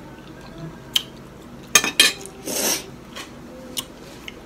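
Cutlery clinking against a dinner plate while eating: a few sharp clicks, with a short scrape about two and a half seconds in.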